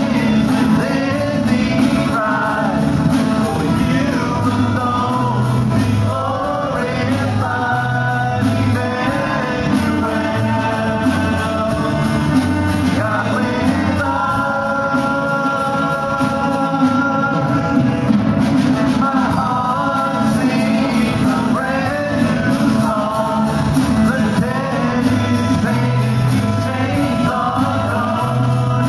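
A live worship band playing a hymn-style song: voices singing held, sustained lines over strummed acoustic guitar, electric bass and drums.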